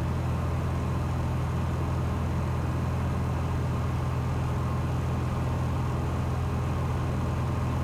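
Single-engine Cessna 182's piston engine and propeller droning steadily in cruise, heard inside the cabin as a constant low hum.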